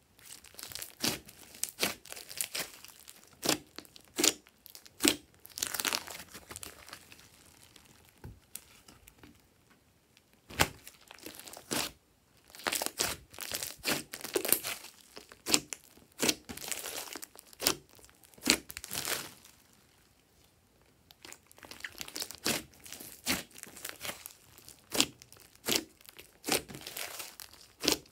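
Glossy slime studded with foam beads being squeezed and kneaded by hand, giving dense, irregular sticky crackles and pops, with two short pauses.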